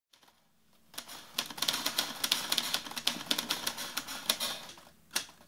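Typewriter keys clacking in a quick, irregular run, starting about a second in, with one separate sharper strike near the end.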